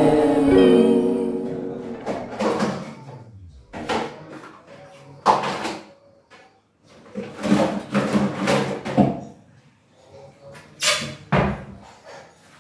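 Plastic kitchenware and dishes clattering and knocking as they are rummaged through in a lower kitchen cupboard, a string of separate knocks with short pauses between. Background music fades out in the first two seconds.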